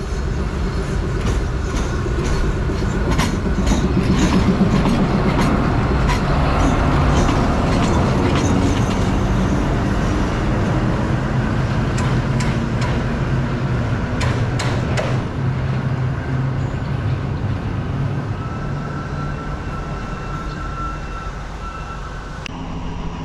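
Alsthom diesel-electric locomotive passing, its engine running with a steady low hum while its wheels clack over rail joints and points. The clacking stops about fifteen seconds in, and the engine sound fades near the end.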